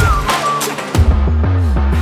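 Background music: a drum hit and a short gliding lead melody, then about halfway a second drum hit and a deep bass line whose notes slide down in pitch.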